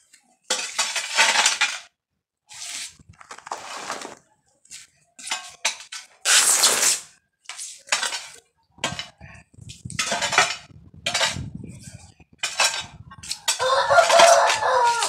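A metal hoe blade scraping and dragging loose soil across ceramic floor tiles in repeated short strokes. A rooster crows near the end.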